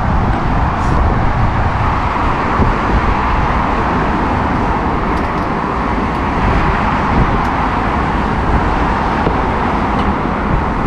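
Steady rushing noise while riding a bicycle: wind on the action camera's microphone mixed with road traffic, with no single event standing out.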